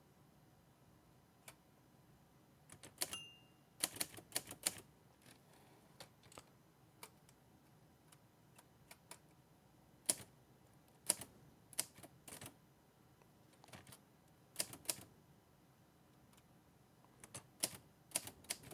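Hermes 3000 manual typewriter being test-typed with a newly fitted ribbon: sharp key clacks in short clusters of a few strokes with pauses between. A brief high ring sounds about three seconds in.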